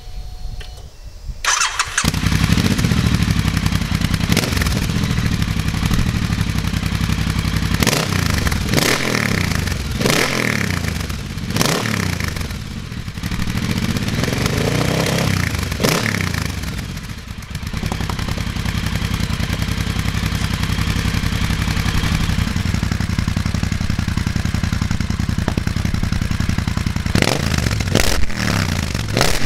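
Triumph Thruxton 1200's parallel-twin engine starting about a second and a half in, breathing through a TEC Dueller 2-2 big-bore decat exhaust with the smaller, less loud high-flow baffles fitted. It then idles, with several quick throttle blips and a slower rev through the middle, and two more blips near the end.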